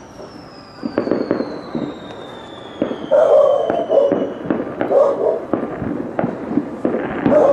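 Fireworks and firecrackers going off, a dense run of sharp bangs and cracks. A long falling whistle sounds over the first few seconds.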